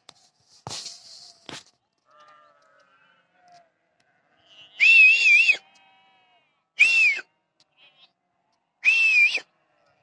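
Sheep bleating: three loud bleats with a wavering pitch, about two seconds apart, over fainter bleats from the flock further off. A short rough noise comes about a second in.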